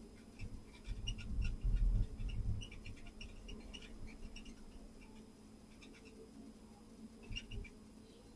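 Short, high squeaks from a heavy-equipment cab window, scattered through, with heavy low thumps about 1 to 2.5 seconds in and again near the end, over the steady low hum of the machine.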